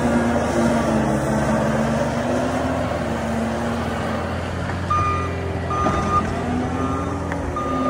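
John Deere 333G compact track loader's diesel engine running steadily. Its backup alarm starts beeping about five seconds in as the machine reverses.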